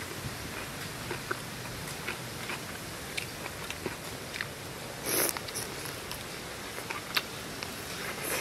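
Eating sounds of grilled chicken being pulled apart, bitten and chewed: scattered small clicks and crunches over a steady hiss, with a louder burst about five seconds in.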